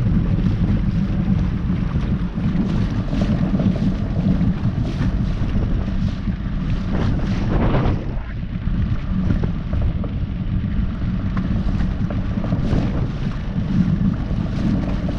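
Wind buffeting the microphone in a small boat on a lake: a steady, fairly loud low rumble.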